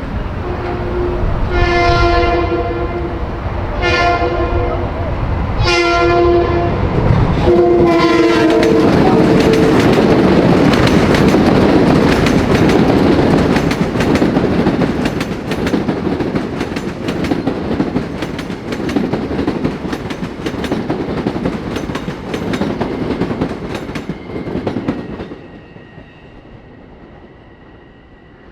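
Train sounding its horn four times as it approaches a grade crossing, then rolling past with wheels clattering over the rail joints, the sound fading away near the end.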